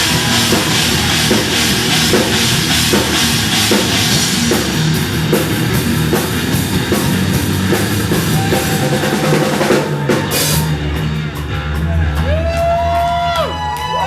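Live rock band playing loud, with a heavy drum kit and crashing cymbals. About ten seconds in the cymbals drop out, leaving bass and drums under sliding, bending high notes.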